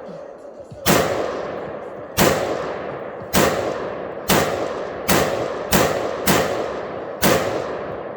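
Custom-built AR-15 rifle fired semi-automatically: eight shots at uneven spacing of about half a second to a second and a half, each with a long echoing tail.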